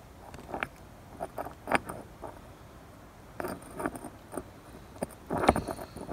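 Small metal clicks and light scrapes from the spool of an Eaton A5000 air slave valve being slid out of its housing by hand. The clicks come in irregular clusters, the loudest about five and a half seconds in.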